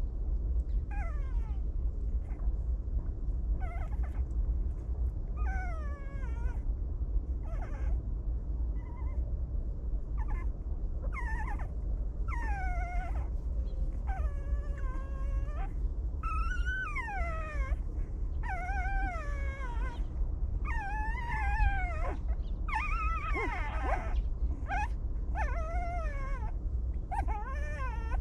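Puppies whimpering and whining: many short, high calls, most falling in pitch, coming faster and overlapping from about ten seconds in, over a steady low rumble.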